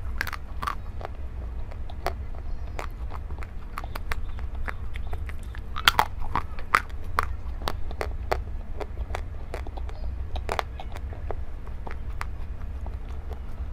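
Close-up eating sounds of a person biting and chewing strawberries: an irregular string of sharp, crisp crunches and clicks, the loudest cluster about six seconds in.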